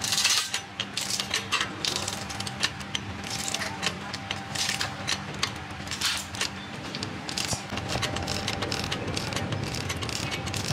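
Irregular crackling and ticking clicks as a press forces a microwave oven transformer's copper coil and laminated iron core apart. About three quarters of the way in, the clicks thin out and a steady low rumble takes over.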